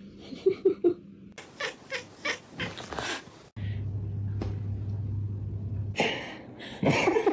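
A domestic cat meowing and yowling, in several short snippets that change abruptly from one to the next.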